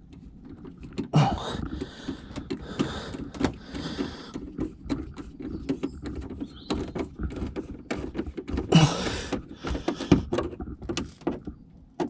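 Plastic interior trim of a Volvo V70 tailgate being pushed and clipped into place by hand: scraping and rustling, with a string of small knocks and clicks.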